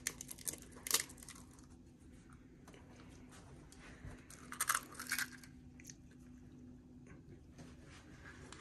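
Eggs cracked on the rim of a stainless steel mixing bowl: sharp taps and shell crunching, one cluster in the first second and another about five seconds in.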